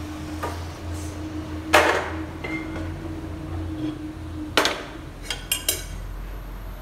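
Cooking pots and utensils clanking: a sharp knock about two seconds in, another about four and a half seconds in, then a quick run of light clinks, over a steady low hum.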